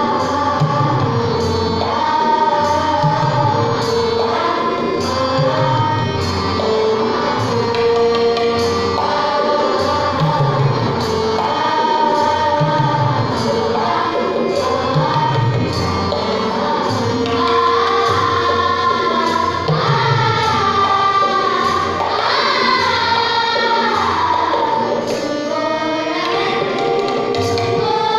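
Children's choir singing a patriotic Hindi song together, over a steady percussion beat.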